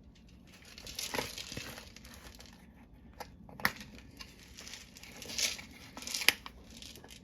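Plastic packaging crinkling and rustling as it is handled, with a few sharp clicks.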